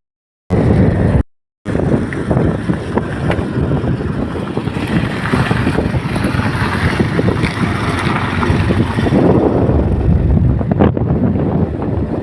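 Wind buffeting the microphone over a steady rushing noise, cut by two short drops to silence in the first second and a half.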